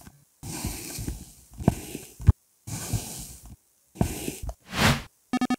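Kinetic sand being crushed and squished as a plastic press tool is pushed down through a cone of it, heard as several short stretches of soft noise with brief silent breaks between them.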